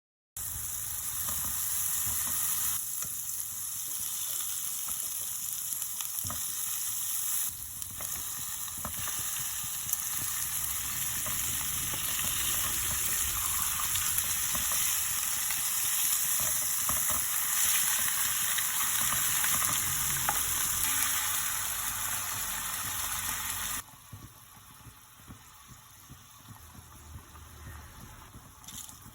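Food sizzling as it fries in hot oil, a loud, dense hiss. About 24 seconds in, the sizzling abruptly drops to a much quieter level.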